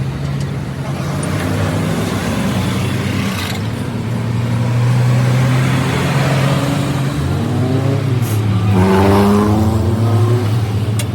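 An engine running steadily, its pitch shifting a few times as its speed changes.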